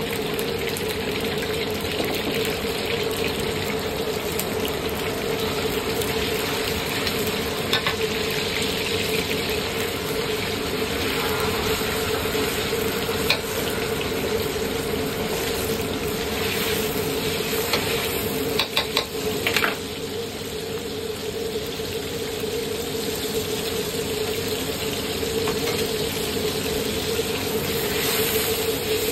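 Shredded chicken sizzling in hot oil in a wok over a gas burner, the ladle stirring and scraping through it. The ladle clanks against the wok now and then, several times in quick succession a little past halfway, over a steady low hum.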